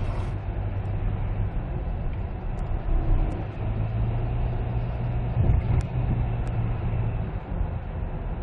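Cabin noise inside a 2003 Kia Sorento diesel SUV cruising on the road: a steady low engine drone with tyre and road noise, swelling slightly partway through.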